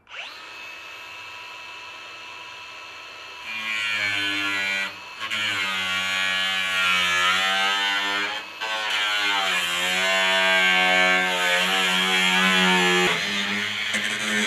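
Milwaukee cordless angle grinder spinning up and running free, then, a few seconds in, cutting into the rusted sheet-metal lower box panel of a 2006 Ford F150. The whine gets louder and its pitch sags and wavers under load, with two brief breaks where the wheel lifts off the metal.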